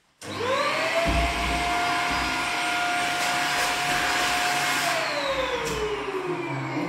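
Vacuum cleaner switched on, its motor whine rising quickly to a steady pitch. About five seconds in it is switched off and winds down with a falling whine.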